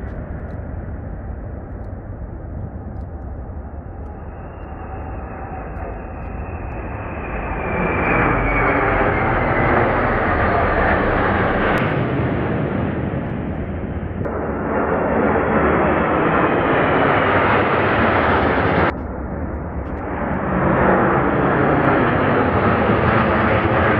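Military jet fighters passing overhead in formation, their engine roar swelling as they approach, with a faint falling whine. The roar builds about eight seconds in and again later, breaks off abruptly about nineteen seconds in, then builds again.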